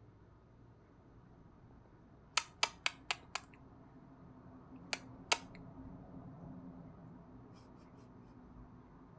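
Sharp clicks: five in quick succession, then two more a second and a half later.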